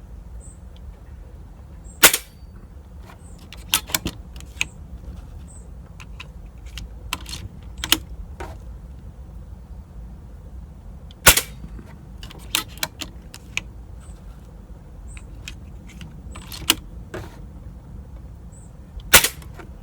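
Air rifle firing three sharp shots, roughly nine seconds apart, with lighter clicks and knocks between them as the rifle is handled.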